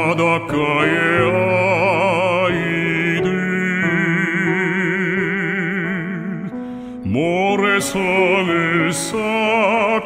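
Baritone singing a Korean art song with strong vibrato over piano accompaniment. He holds one long note in the middle and starts a new phrase about seven seconds in.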